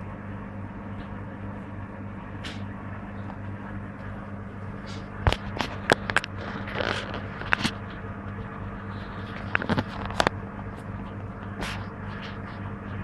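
Servis Gem M310 washing machine running through its rinse stage: a steady hum with scattered sharp clicks and knocks, the loudest about five to six seconds in and again around ten seconds.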